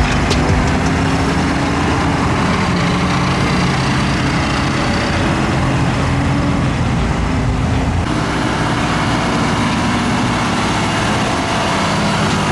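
Heavy diesel construction machinery running steadily, with a low engine hum whose pitch shifts a little; the sound changes abruptly about eight seconds in.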